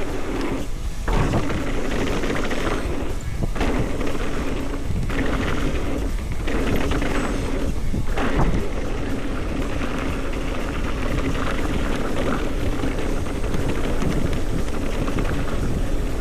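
Wind buffeting the microphone, with the rumble of mountain bike tyres and frame rattle on a dirt downhill trail. The noise is steady and loud, dipping briefly a few times.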